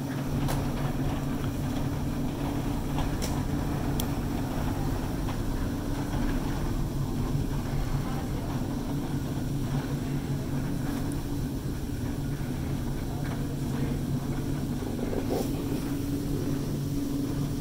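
Aerial tramway haulrope running around the top station's bullwheels at about 6 m/s: a steady low hum with two held tones over a rumble, the vibration carried through the station building.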